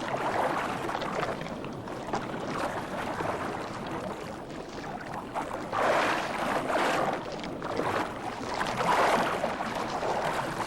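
Water splashing and churning as tiger sharks thrash while tearing at a turtle carcass, swelling louder about six seconds in and again near nine seconds.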